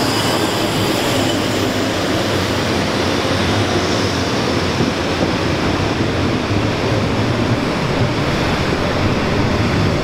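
Bernese Oberland Railway metre-gauge electric train pulling in along the platform: a steady rumble of wheels on rail, with a faint high squeal that fades in the first few seconds.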